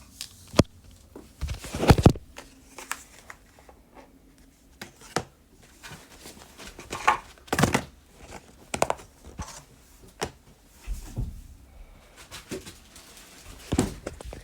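Hands taking an M.2 SSD out of its cardboard and plastic packaging: irregular knocks, clicks and crinkling, loudest about two seconds in.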